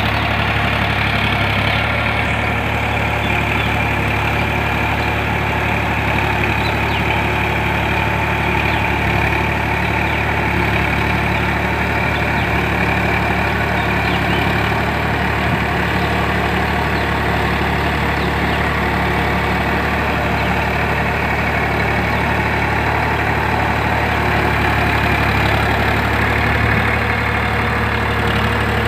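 Preet 4549 tractor's diesel engine running steadily under load, pulling a 5½-ft rotavator that churns a flooded paddy field.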